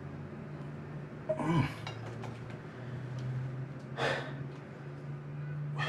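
Small clinks and knocks of objects being handled at a sink, with a short rush of noise about four seconds in, over a steady low hum.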